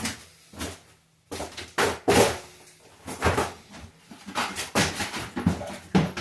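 A toilet bowl being lifted and set into place: a string of irregular knocks, thumps and short scrapes.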